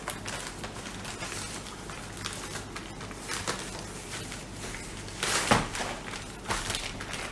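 Packaging rustling and crinkling as it is wrestled open, in short scattered bursts, with a louder burst about five seconds in.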